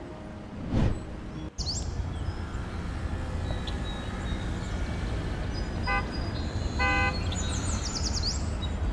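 A brief whoosh about a second in, then street ambience: a steady low traffic rumble, a vehicle horn honking briefly twice a little past the middle, and birds chirping.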